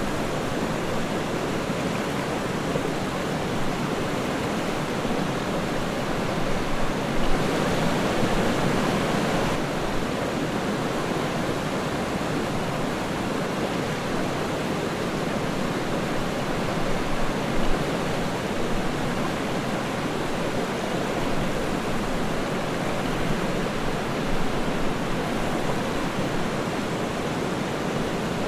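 Waterfall: water falling and splashing in a continuous, steady rush, a little louder and brighter for a couple of seconds about seven seconds in.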